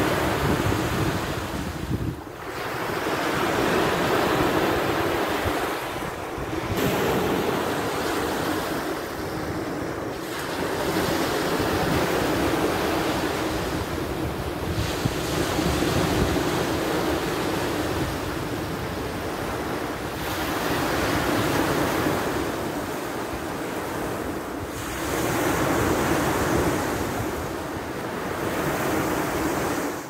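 Small waves washing and breaking on a shoreline, swelling and easing every four to five seconds, with wind rumbling on the microphone.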